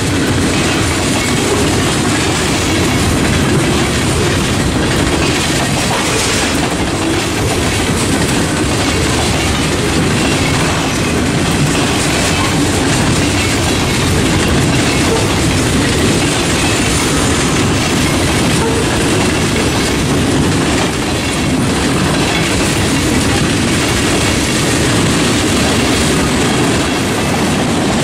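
Freight train of boxcars and covered hopper cars rolling past at a steady pace, its steel wheels clattering and rumbling on the rails.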